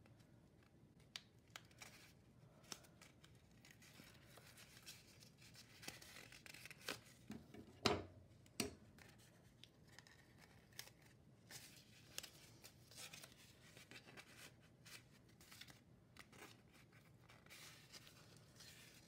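Faint rustling, ticking and tearing of blue tape being pulled from its roll, torn off and pressed around a straw and paper funnel, with a couple of sharper clicks about eight seconds in.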